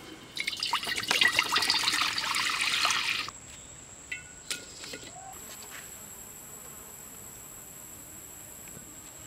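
Water poured into a metal wok for about three seconds, then stopping, as the wok is readied for steaming.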